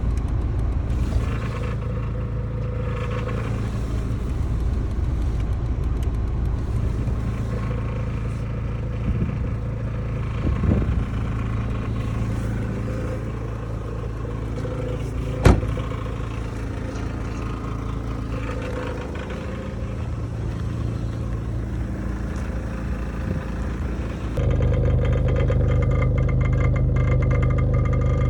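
1999 Volvo S40 1.8-litre engine idling steadily while it warms up after a cold start at −1 °C. There is one sharp click about halfway through, and the engine sound gets louder and fuller for the last few seconds.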